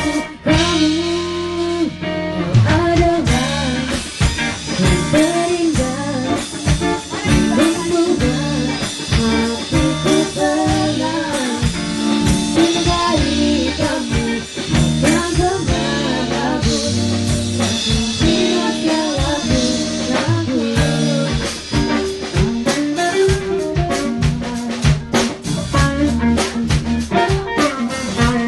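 A woman singing into a microphone, backed by music with a drum kit and other instruments.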